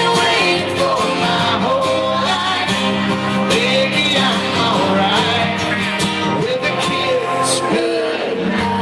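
Live country music: a singer over acoustic guitar and band, played through a concert sound system.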